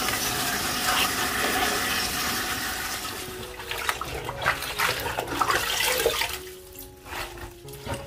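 Tap water running and splashing as cut napa cabbage is washed, with knocks from the leaves and vessel being handled. The flow eases off about six seconds in.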